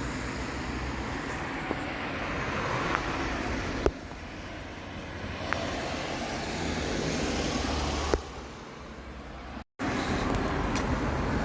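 Buses and road traffic running along a town street: a steady rumble of engines and tyres. It changes abruptly with a click about four seconds in and again about eight seconds in, and drops out briefly near the end.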